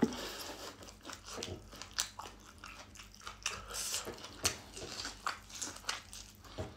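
A person chewing and biting into a piece of cooked corn on the cob, with irregular crunches.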